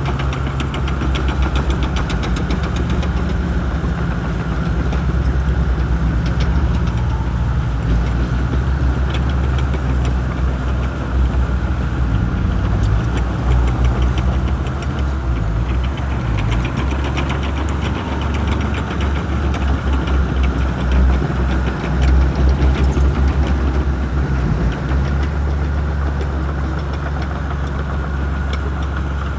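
Shantui bulldozer's diesel engine running steadily as it works, with a fast light clatter over the engine note and the level swelling a little now and then.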